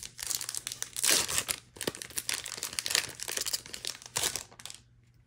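Foil wrapper of a Magic: The Gathering booster pack crinkling and tearing as it is opened by hand, a run of crackling rustles that stops shortly before the end.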